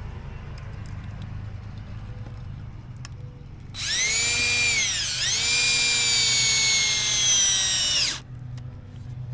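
Cordless drill driving a screw: a high motor whine about four seconds long that dips briefly about a second in, picks up again and sags slightly in pitch under load before stopping.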